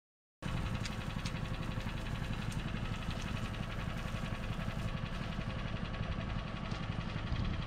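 Plate compactor running steadily on road base, its engine and vibrating plate giving a fast low pulsing. It cuts in abruptly about half a second in.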